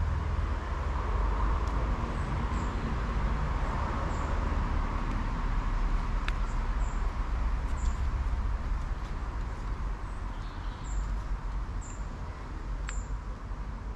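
Outdoor ambience with a steady low rumble of wind on the microphone. Short, high bird chirps repeat about once a second in the second half.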